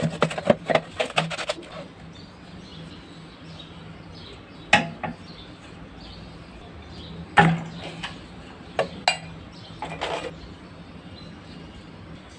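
Scattered clinks and knocks of hard objects being handled: a quick run of them at the start, then single knocks every second or two, over a faint steady low hum.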